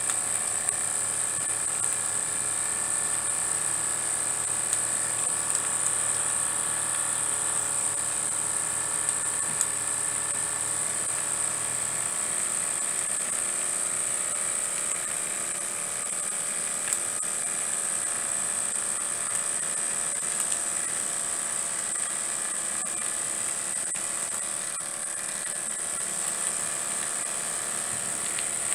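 Small model horizontal mill steam engines running steadily, a fast even mechanical whir with a constant high hiss.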